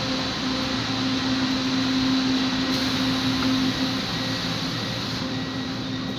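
Manila LRT-2 light-rail train heard from inside the car, running with a steady hum and rail noise as it slows into a station; the hum drops out a little past halfway and the noise eases off as the train comes almost to a stop.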